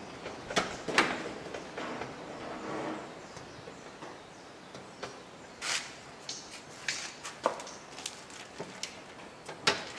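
Scattered light knocks and taps with some rubbing as a steel gas-cylinder cart is handled and wiped down. The sharpest knocks come about a second in and just before the end.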